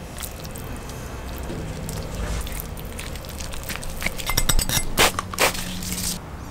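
Food-prep handling sounds: scattered clicks and knocks as gloved hands spread chimichurri with a metal spoon and roll raw flank steak on a cutting board. About four and a half seconds in there is a quick run of small metallic clinks, followed by two sharp knocks.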